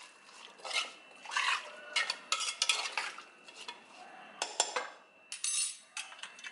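Chopped radish, onion and tomato with spices and water being stirred by hand in an aluminium pressure-cooker pot: irregular scrapes and clinks against the metal, with a short metallic ring about five and a half seconds in.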